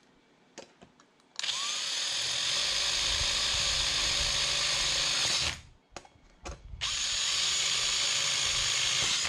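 Cordless drill boring holes through a plastic kayak guardian plate, using a metal bracket as the template. It runs for about four seconds starting a second and a half in, stops briefly with a few knocks, then drills again for another two and a half seconds.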